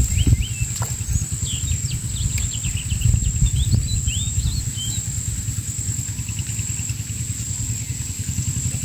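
Outdoor pond-side ambience: small birds chirping in short, quick calls, over a steady high insect drone and a low continuous rumble.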